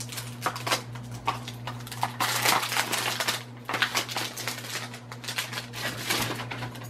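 Small clicks, taps and rustling of a makeup brush set and its packaging being handled, with a denser rustle about two to three seconds in. A steady low hum runs underneath.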